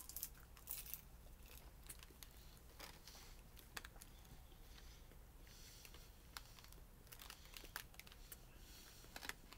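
Faint crunching and crackling of a sticky marshmallow popcorn ball being chewed, with scattered small clicks, a little louder in the first second and again near the end.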